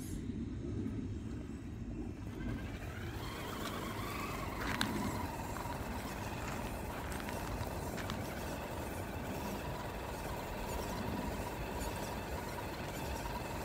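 Absima Sherpa RC scale crawler climbing loose gravel. The steady whine of its electric motor sets in about three seconds in, with tyres crunching on the stones and a couple of sharp clicks, over a low rumble of wind on the microphone.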